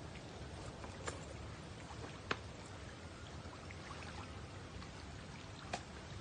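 Quiet outdoor ambience with a faint watery wash, broken by three short sharp clicks, the loudest a little over two seconds in.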